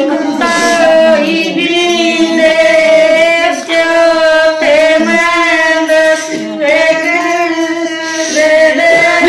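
A woman singing, holding long notes with a slight waver in pitch, with a short break about four seconds in.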